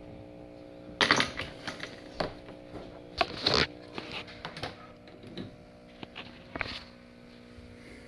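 Clicks, taps and rattles of a light bulb being handled and swapped in a lamp, loudest about a second in and again around three and a half seconds. Under them runs a steady electrical hum from a PowerJack split-phase inverter, which the owner says sounds like it's about to explode whenever anything is plugged in.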